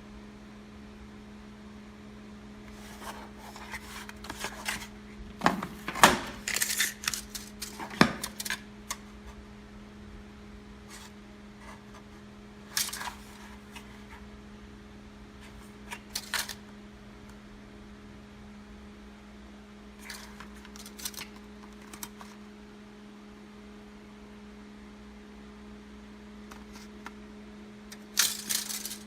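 Scattered clicks, taps and rustles of a hard-drive docking station, its cables and its packaging being handled, with a cluster of louder clicks a few seconds in. A steady low hum runs underneath.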